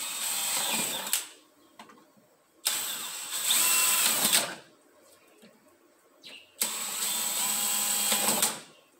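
Cordless drill boring holes through the base of a plastic plant pot. It runs in three bursts of a second or two each with short pauses between, the first stopping about a second in.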